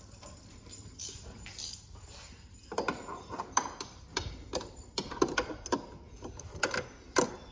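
A series of light metallic clicks and clinks, a few with a short ring, spread irregularly over a few seconds: small metal parts or tools knocking together.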